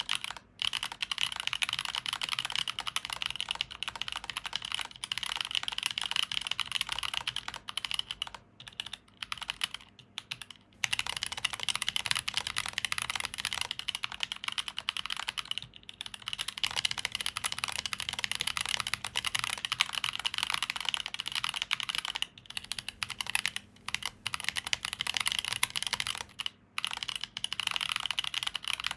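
Continuous fast typing on a custom mechanical keyboard (Prime_E stacked-acrylic case, acrylic plate, stock 62g Boba U4T tactile switches, GMK keycaps), the keystrokes clacking in quick runs with a few brief pauses. A longer pause about ten seconds in marks the change of recording from a phone to a desk condenser microphone.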